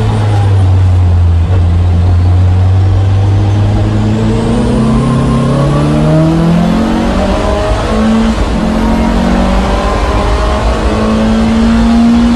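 Onboard sound of a Lancia Delta HF Integrale's turbocharged four-cylinder engine. It runs at low revs through a slow corner, then accelerates hard with the revs climbing, shifts up about eight seconds in, and climbs again.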